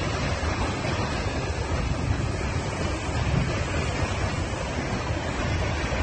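Steady rushing roar of the Ban Gioc waterfall, with wind buffeting the phone's microphone and adding a low, unsteady rumble.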